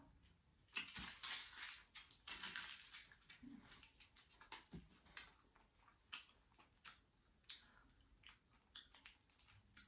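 Faint crackling and scattered small clicks: chocolate being chewed close by and a foil-wrapped Kinder Surprise egg being handled. The crackling is densest for about two seconds near the start, then thins to single clicks.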